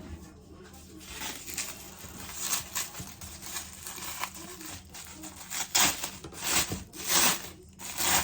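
A run of short rustling, scraping handling noises, with a few louder strokes near the end.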